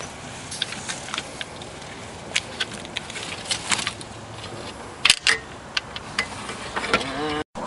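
Scattered light clicks and small metallic rattles of hand work on the headlight bracket, with a sharper click about five seconds in.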